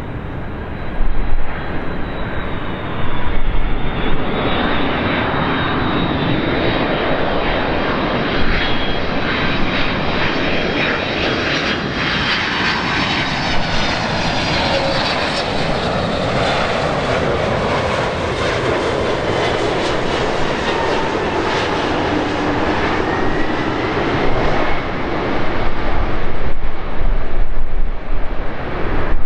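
Jet airliner on final approach flying past, its engines making a broad rushing noise that swells to a peak about midway and then fades, with high whining engine tones that shift in pitch as it goes by.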